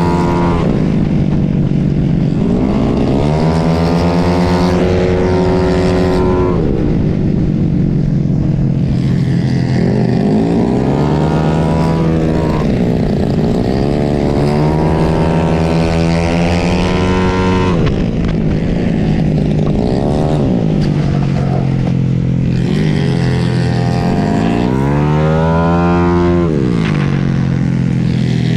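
Yamaha Mio J automatic scooter's single-cylinder engine, bored out to 150 cc, racing at full throttle, heard from on board. Its note climbs and drops over and over every few seconds as the rider opens the throttle out of the corners and backs off into them.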